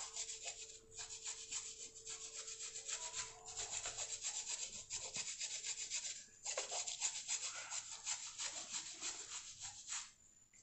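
A chocolate bar being scraped into shavings: quick, rasping strokes in runs with a few short breaks, stopping shortly before the end.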